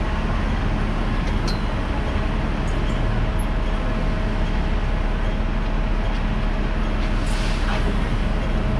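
Steady low rumble of busy street traffic heard from the upper deck of a Hong Kong double-decker tram standing at a junction, with a faint steady hum.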